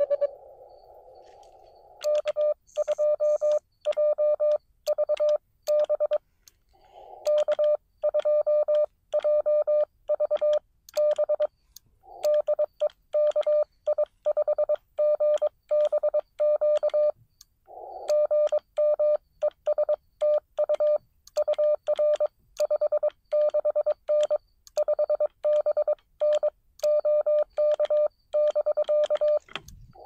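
Morse code sidetone from a Xiegu X6100 transceiver: a steady mid-pitched beep keyed on and off in dots and dashes as the operator sends with his key. Between runs of sending, the receiver's narrow-filtered band hiss comes up briefly, at the start and twice more, about 7 and 18 seconds in.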